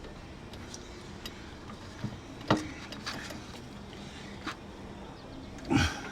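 A few sharp clicks and knocks of hand tools and bolts during work under a truck. The sharpest click comes about two and a half seconds in, and a heavier knock comes near the end.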